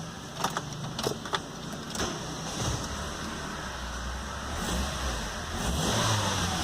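Mercedes-Benz A160 engine running at idle just after its first start following repair, a steady low hum that grows louder near the end. A few light clicks are heard about half a second to a second and a half in.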